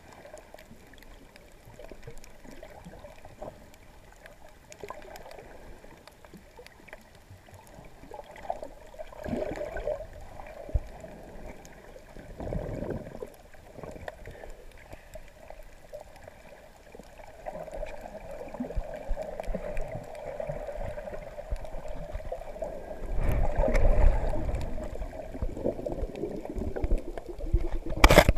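Muffled underwater water sound picked up by a submerged GoPro camera: low sloshing and gurgling, with louder low rushes of water about halfway through and again near the end.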